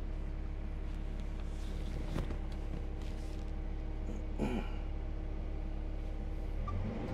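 Excavator diesel engine running steadily, with a couple of brief sharper sounds over it about two and four and a half seconds in. Its note shifts lower and fuller just before the end.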